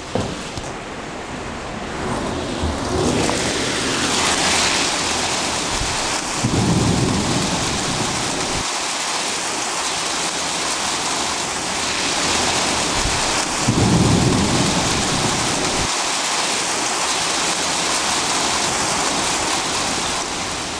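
Steady rain falling, with two low rolls of thunder about two seconds long, the second coming about seven seconds after the first.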